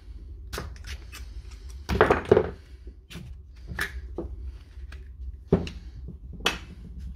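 Scattered clicks, taps and knocks of hand tools and a lithium-ion battery cell pack handled on a wooden workbench, a pointed metal tool prying at the pack's nickel cell strips. The loudest are two knocks about two seconds in, with sharp clicks later on.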